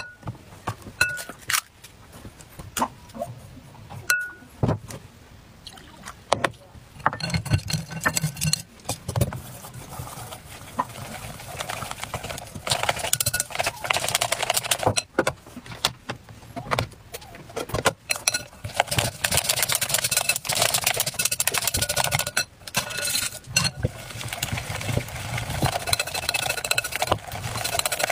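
A bag rustles with a few scattered clicks at first, then a whisk scrapes and clicks rapidly against a glass mixing bowl as a thick batter is mixed, the busy scraping running on through the rest.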